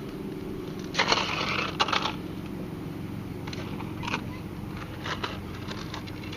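Short bursts of scraping and rustling as a sheepshead is handled in a landing net, the loudest about a second in and smaller ones spread through the rest, over a steady low hum.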